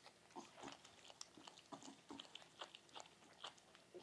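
Faint, irregular wet smacking and clicking of a mother dog and her newborn puppies nursing and licking.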